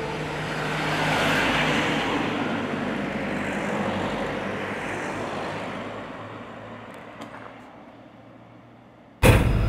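A van driving past on a road: the noise of its engine and tyres swells over the first couple of seconds as it passes, then fades slowly away. Near the end a loud machine rumble starts abruptly.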